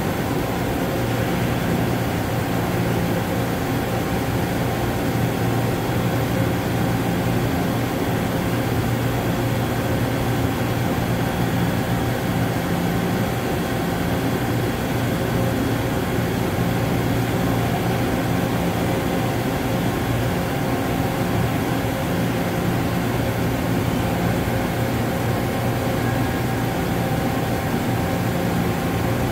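5-axis CNC machining centre running steadily: a constant machine hum with several held tones and no changes.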